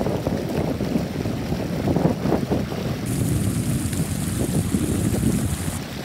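Stream water rushing and splashing down a small cascade between rocks, a steady close-up rush with constant small surges.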